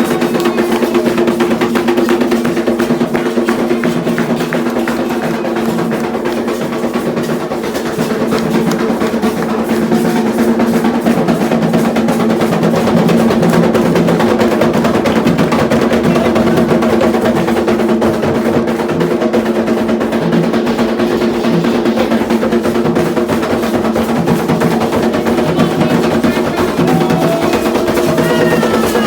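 Candomblé ritual drumming on atabaque hand drums: a fast, continuous rhythm of dense strokes with steady sustained tones underneath.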